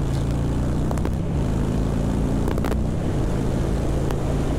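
2020 Harley-Davidson Street Bob's Milwaukee-Eight 107 V-twin running through short shot exhausts under hard acceleration from 30 toward 70 mph, with wind noise on the microphone.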